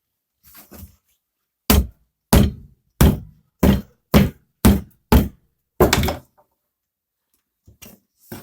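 About eight hammer blows in a row, roughly two a second, tapping a motorcycle tyre's bead over the edge of a Dnepr/Ural wheel rim.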